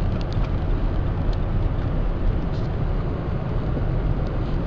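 Steady road and engine noise inside a moving truck, a low rumble with a few faint clicks.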